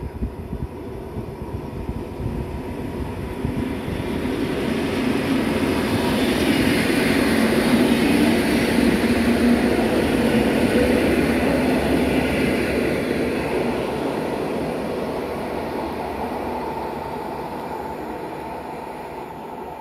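A passenger train passing through a station: the rumble of wheels on rails builds, peaks around the middle, and slowly fades as it moves away.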